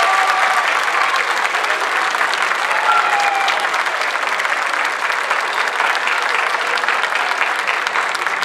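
Crowd applauding steadily, dense clapping with a few voices calling out over it.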